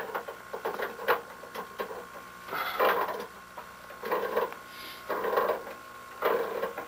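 Hand tool working on metal water-heater piping: a few sharp clicks, then four scraping strokes about a second apart.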